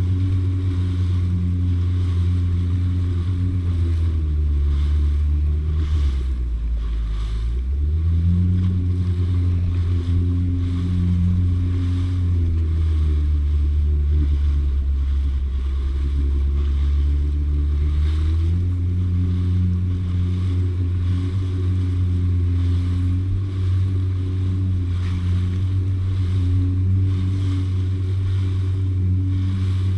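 Jet ski engine running under way, its pitch easing down about four seconds in, picking back up near eight seconds and stepping up again about eighteen seconds in, as the throttle changes. Hiss of spray and wind noise on the microphone runs over it.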